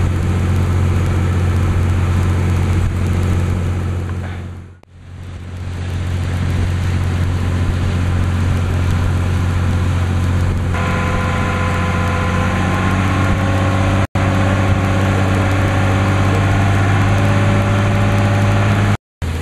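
Boat engine running at a steady, constant speed, a deep even hum. About eleven seconds in, a higher whining tone joins it, and the sound cuts out briefly twice near the end.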